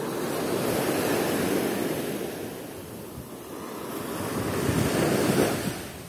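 Small Sea of Azov waves breaking and washing up a sandy shore, the surf swelling twice, with wind buffeting the microphone.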